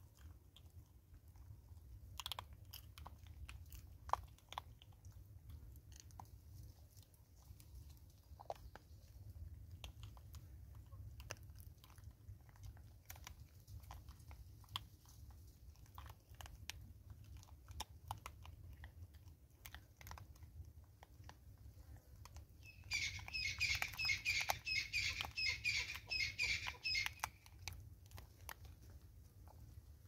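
Vervet monkeys crunching and chewing birdseed at close range, with scattered small clicks and crackles as seeds are picked up and bitten. Near the end comes a loud run of rapid, high-pitched calls lasting about four seconds.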